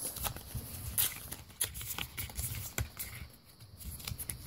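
Pokémon trading cards being handled: cards sliding and flicking against one another as the stack is rearranged in the hands, giving a run of soft clicks and rustles.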